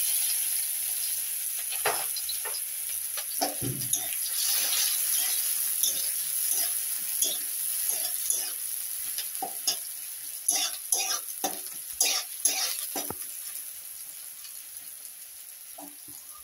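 Chopped onions sizzling in hot oil in a metal kadai, stirred with a metal spatula that scrapes and clinks against the pan again and again. The sizzle is loudest at first, just after the onions go in, and dies down steadily as they fry.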